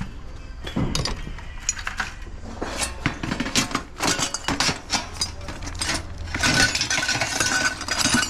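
Small pieces of scrap metal clinking and clattering against each other as they are handled and tipped into a container, with a dense run of clatter in the second half.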